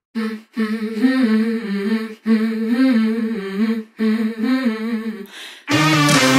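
A voice humming a wavering melody in three short phrases, as part of an edited intro, then backing music with a beat comes in near the end.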